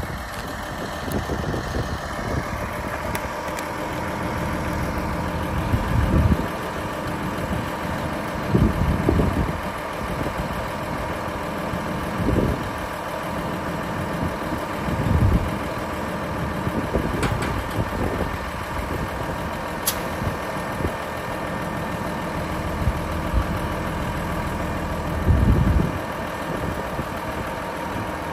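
Cummins ISM 350 inline-six diesel in a Kenworth W900 mixer truck idling steadily, with a few short low bumps over it.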